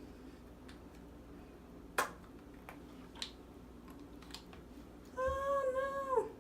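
A few sharp plastic clicks and taps from handling small lotion bottles, then a steady pitched squeak-like tone lasting about a second near the end.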